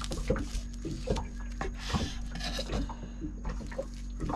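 Knife slicing through a sushi roll, with short knocks and clicks on the cutting board, over a steady low hum.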